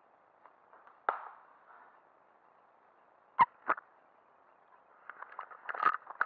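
Handling noise from the camera being picked up and moved: a faint hiss broken by a sharp knock about a second in and two more close together halfway through, then a run of small clicks and rustling near the end. No motors are running.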